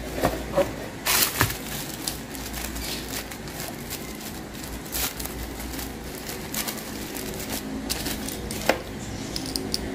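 Thin protective wrapping from a tablet box crinkling and rustling as it is handled and unwrapped, with scattered short crackles and clicks.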